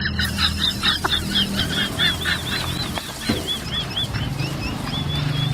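A bird calling in a rapid run of short, high, arched chirps, about four or five a second, that stops about three and a half seconds in, over a steady low hum.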